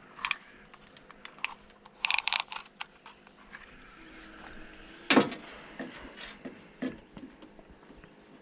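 Scattered clicks and rattles of a fish and gear being handled in a small boat while a crappie is measured, with a quick rattling cluster about two seconds in and one louder knock about five seconds in.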